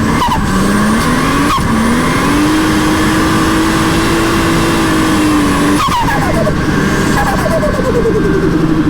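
Turbocharged RB25DET straight-six of an R33 Skyline with a Hypergear G3 turbo pulling hard, its note climbing through a quick gear change and then holding steady. About six seconds in the throttle lifts, the revs fall, and the turbo flutters in a rapid chatter.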